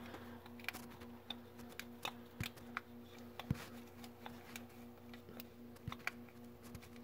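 Faint scattered clicks and taps of a gloved hand working a plastic wiring plug onto an oil pressure sensor, over a faint steady hum.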